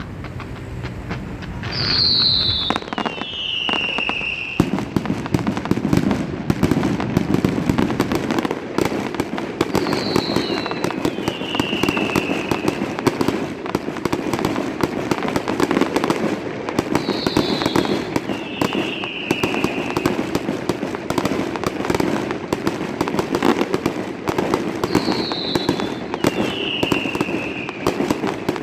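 Fireworks display in a dense barrage: rapid bangs and crackling that thicken into a continuous run about four seconds in, echoing off surrounding buildings. A pair of high, falling whistles repeats every seven or eight seconds over the crackle.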